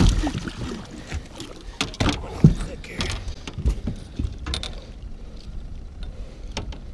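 Knocks and clatter of a landing net's frame and handle against the side of a fishing boat, with water sloshing, as a netted musky is held alongside; the loudest knock comes about two and a half seconds in.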